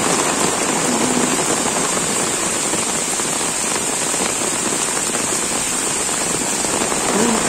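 Heavy rain pouring steadily onto a concrete rooftop and the surrounding trees and foliage.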